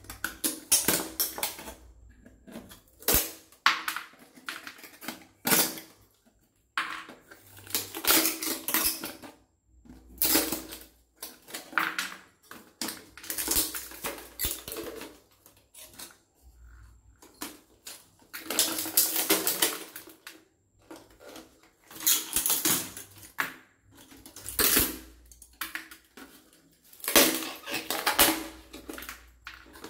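Pliers snapping and crunching the thin wooden sticks of a bird trap, with the stick cage rattling as it is pulled apart. The cracking and clattering comes in irregular bursts a second or two apart, with short pauses between.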